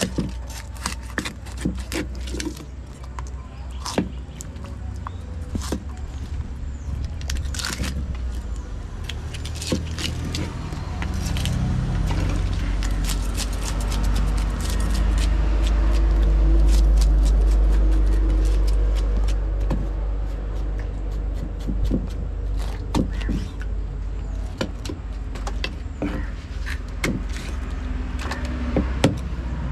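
Knife blade knocking and scraping on a wooden chopping block as a tilapia is cut up, in many sharp chops and clicks. From about ten seconds in, the low rumble of a passing vehicle's engine builds, is loudest around the middle, then fades.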